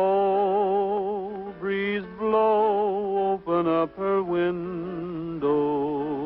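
A man singing a slow serenade to guitar, holding long notes with a wavering vibrato, in several phrases with short breaks between them.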